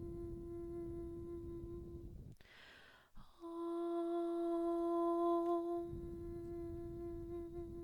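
A woman chanting the seed sound Om on one long steady note, the closing hum held until about two seconds in. A breath follows, then a new long Om on the same pitch begins about three seconds in and is held to the end.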